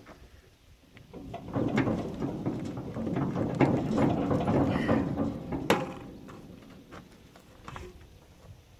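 Metal parts of the haybine's crimper drive clattering and clicking as they are worked into place, a dense run of rattles and knocks lasting several seconds with one sharp click near the end.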